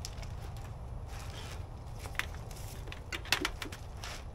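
A few light, sharp clicks and taps from a hand tool and the metal parts of a poultry plucker's frame being handled, about two and three seconds in, over a steady low outdoor rumble.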